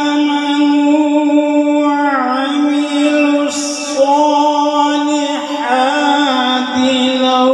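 A man's voice reciting the Quran in a melodic, drawn-out chant, amplified through a microphone, holding long notes with slow bends in pitch.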